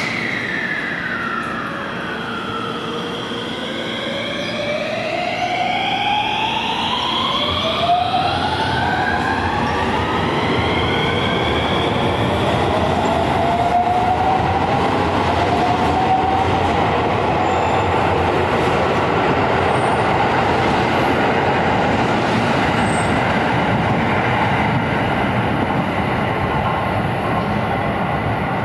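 Rapid Marine Liner electric train (223 series 5000 subseries with a 5000 series unit) pulling away from the platform. Its traction motor whine rises in pitch in several stepped glides over the first dozen seconds, then gives way to steady running and wheel noise as the cars roll past.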